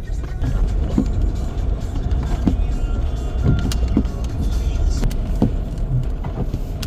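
Car running on a snowy, slippery road, heard from inside the cabin: a steady low rumble of engine and tyres, with scattered light clicks.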